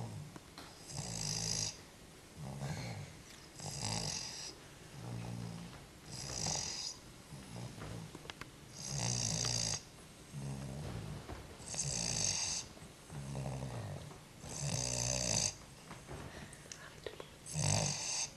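Steady, regular snoring, one snore roughly every one and a half seconds. Each snore has a low rumble, and the louder ones carry a strong hiss.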